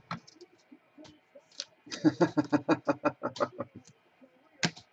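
Light clicks and taps from handling trading cards and a hard plastic card holder. In the middle comes a brief burst of short, quickly repeated voiced pulses, like a person chuckling, and one sharper click near the end.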